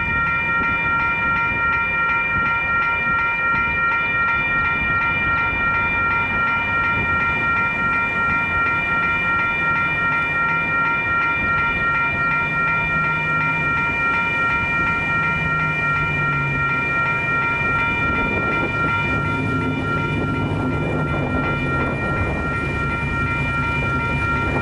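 Grade-crossing warning bell ringing steadily and rapidly while the crossing signals are active. In the second half a low rumble builds underneath: the approaching train's locomotives.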